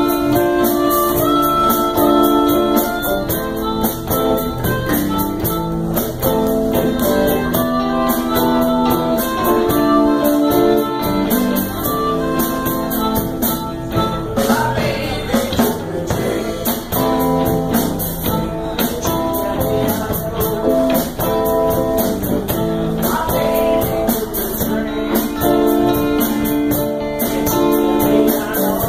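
A live blues band playing loud and steady, with electric guitars and a drum kit and held lead notes over them.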